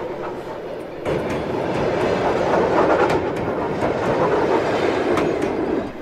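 Passenger train carriages rolling past. The steady rumble comes in suddenly about a second in and cuts off near the end.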